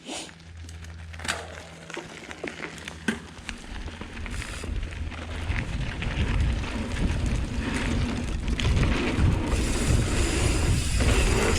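Hardtail mountain bike setting off down a dirt trail: scattered clicks and rattles at first, then a rising rumble of tyres, chain rattle and wind on the rider-mounted microphone from about five seconds in, growing louder as speed builds.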